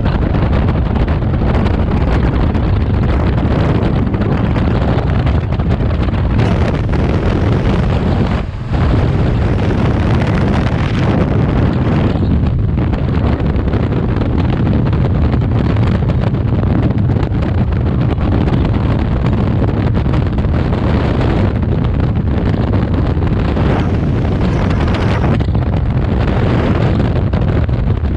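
Steady, loud rush of freefall wind blasting across a jumper-worn camera's microphone during a skydive, with a brief dip about eight and a half seconds in.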